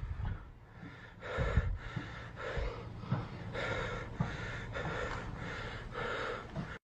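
A person breathing heavily and rhythmically, about two short breaths a second.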